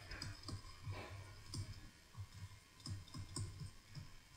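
Faint, irregular clicks and soft taps as a word is handwritten into a computer drawing program.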